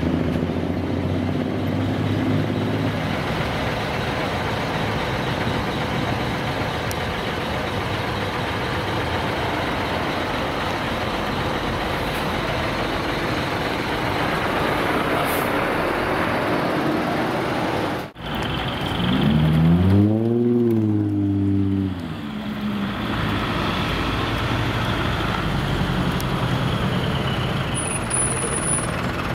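Heavy truck engines running steadily. About two-thirds of the way in, after a brief drop in sound, one engine revs up and back down over a couple of seconds, the loudest moment.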